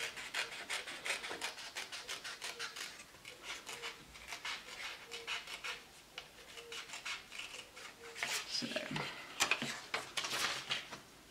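Scissors cutting through paper: a quick run of small crisp snips with paper rustling, then a few louder paper rustles and clicks near the end as the cut piece is handled.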